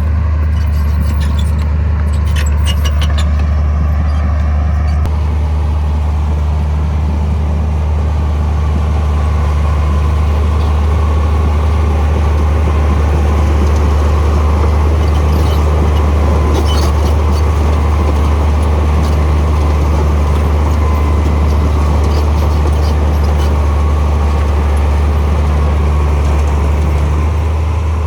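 Heavy construction machine's diesel engine running steadily under load, a loud, constant low hum, with a few light metallic clicks in the first few seconds.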